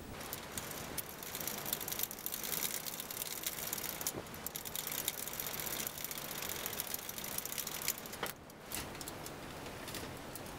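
Small metal fittings at a bicycle's rear hub and brake clicking and rattling as they are handled, with a brief lull about eight seconds in.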